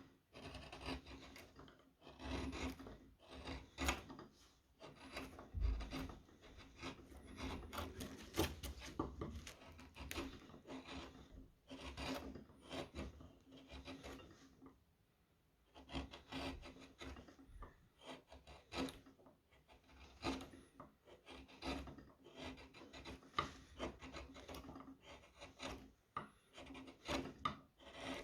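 Round carving chisels (gouges) cutting into a wooden spoon: a run of short scraping strokes, with a brief pause about halfway through.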